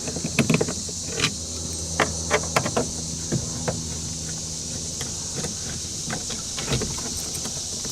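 Scattered light clicks and taps of a nut driver and small screws being worked out of a truck door's speaker mount, over a steady low hum and a steady high hiss.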